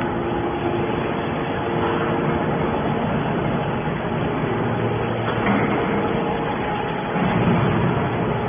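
Aluminium can baler machinery running: a steady mechanical din with a constant hum. The sound changes about five seconds in and grows a little louder near the end.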